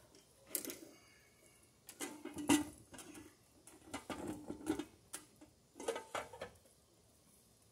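Short clicks and knocks of an outdoor RV receptacle box and its conduit being handled and fitted together, coming in several small clusters, the loudest about two and a half seconds in.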